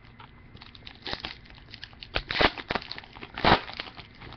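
Trading cards and their pack wrapper handled by hand: irregular crinkling and rustling, with two louder swishes about two and a half and three and a half seconds in.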